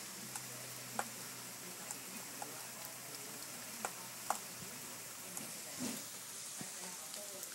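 Steady hiss of falling rain, with irregular sharp ticks of single drops striking close by.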